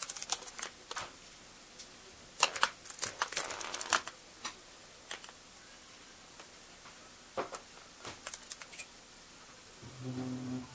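Pet parakeet moving about among plastic toys and small balls: scattered small taps, clicks and scratchy rustles, busiest a couple of seconds in. A brief low hum sounds near the end.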